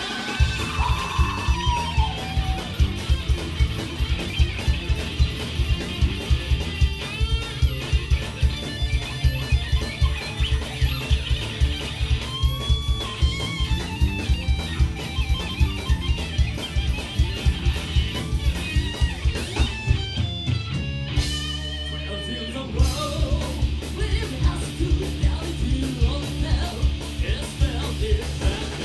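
Live symphonic metal band playing: distorted electric guitars over fast, steady kick drumming, with a high lead line that bends in pitch. About twenty seconds in the drums drop out for a couple of seconds, then the full band comes back in.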